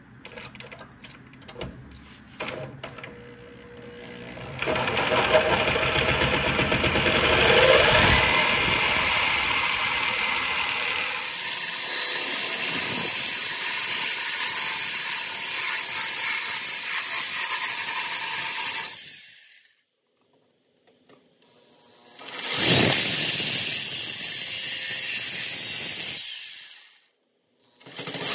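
Reciprocating saw cutting through the steel of a truck frame, run in three bursts: a long cut, a pause, a shorter cut, and a third starting near the end. Light clicks and taps come first, before the saw starts.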